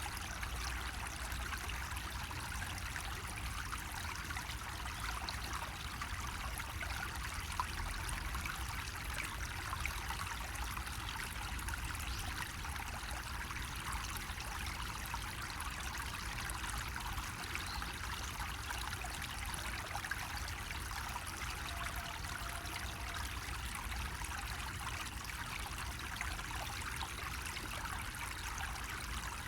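Water trickling steadily from a bamboo spout, an even splashing with no pauses, over a faint low rumble.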